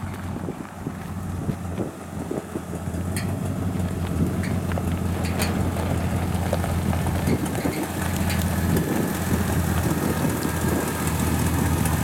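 1962 Ford F100 unibody pickup's engine running as the truck drives up and pulls in close, then idling. It grows louder over the first few seconds and then holds a steady low drone, with scattered light ticks.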